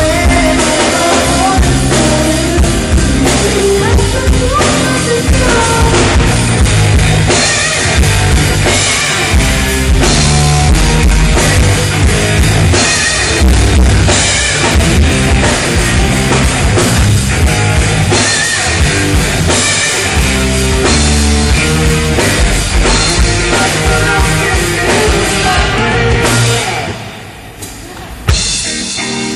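Live rock band playing loud over a PA, led by drum kit and bass with guitar. The playing drops off about three seconds before the end, followed by a single sharp hit.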